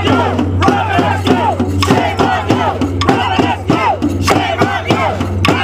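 Hand drums beaten with sticks in a steady beat of about two strokes a second, with a crowd of picketers shouting and chanting over them.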